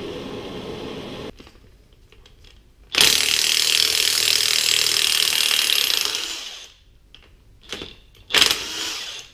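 Propane torch hissing steadily, then cutting off about a second in. A cordless DeWalt impact wrench then hammers on a rusted, torch-heated strut top nut for about three and a half seconds, followed by two short bursts near the end as the nut breaks loose.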